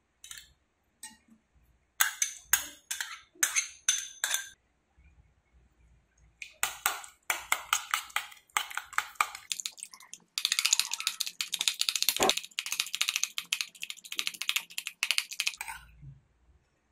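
A steel spoon clinking on bowls: a few sharp taps in the first seconds as chopped spinach is scraped in, then raw eggs being beaten with the spoon in a small steel bowl, metal striking metal in quick strokes that speed up to a dense rapid clinking from about ten seconds in until near the end.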